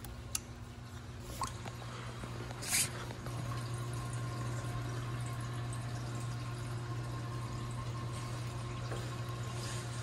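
Water dripping and sloshing in a plastic bucket as a yellow-headed moray eel is scooped into a small aquarium net, with a short splash nearly three seconds in. A steady low hum runs underneath and grows slightly louder after the splash.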